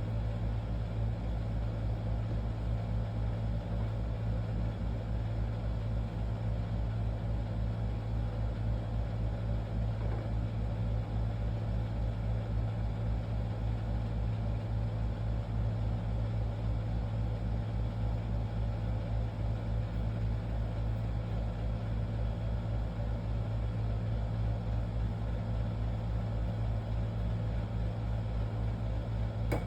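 Steady low machine hum with a rapid, even throb underneath.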